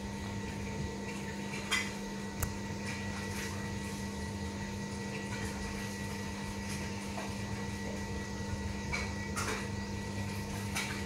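Kitten crunching dry kibble: scattered short, crisp crunches, two of the sharpest about two seconds in, over a steady background hum.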